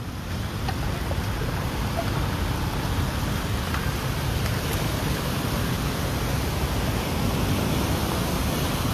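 Steady rushing noise of a flooded road, from water flowing across the street and wind on the microphone.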